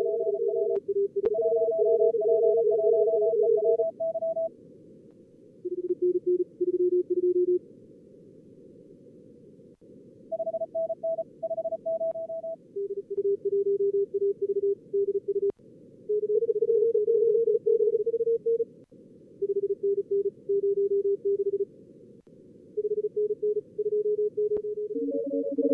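Fast simulated Morse code (CW) from a contest-practice program on two radios: strings of keyed tones at several pitches, sometimes two stations sending at once, over steady receiver hiss. A few brief clicks are heard between them.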